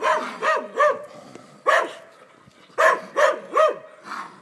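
Hunting dog barking at a raccoon: short, sharp barks in quick groups, about three together at first, a single bark a little later, then three more near the end.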